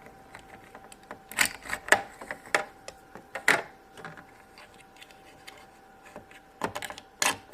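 Small hard-plastic clicks and snaps, about six in all in two clusters, as a MagiClip dress is unclipped and clipped onto a small plastic doll.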